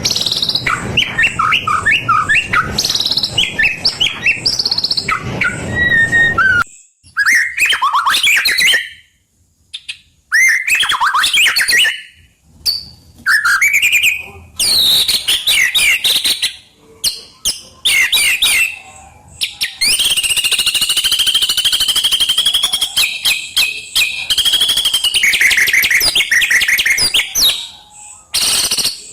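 White-rumped shama singing loudly in full song: quick, varied whistled phrases that glide up and down, separated by short pauses, with a long rapid chattering trill in the second half.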